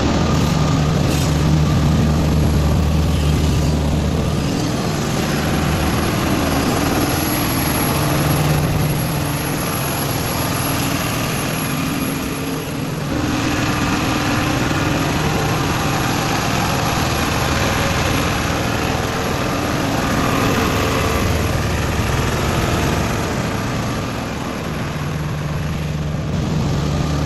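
Cummins diesel engine of a 330 kVA generator set running steadily with a loud, even drone. Its deep low hum drops away about four seconds in and returns near the end.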